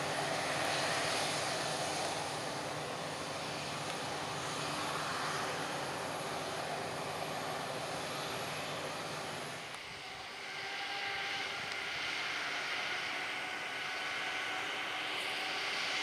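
Krone BiG X 1180 forage harvester chopping maize, with a New Holland tractor running alongside: a steady engine and machinery drone with a thin high whine. About ten seconds in the sound changes abruptly to a similar drone at a different pitch.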